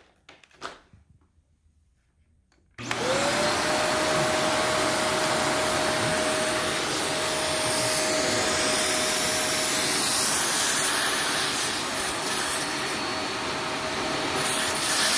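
A Shark NV355 upright vacuum cleaner is switched on about three seconds in. The motor spins up quickly to a steady whine over the rush of air, then keeps running. A few faint handling clicks come before it starts.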